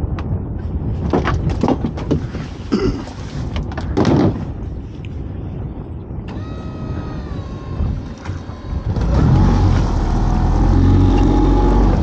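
Small fishing boat's outboard motor running, then opened up about three-quarters of the way in into a loud, low rumble with a slowly rising whine as the boat gets under way. Before that, a series of knocks and thumps.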